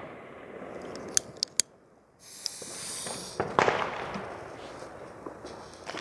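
Small novelty firework from a Comet set going off: a few sharp clicks, about a second of fizzing hiss, then a sudden burst of crackling pops that dies away.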